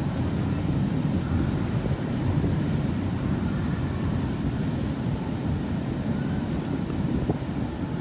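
Wind buffeting the microphone: a steady low rumble that flutters rapidly in loudness, over a faint background hum.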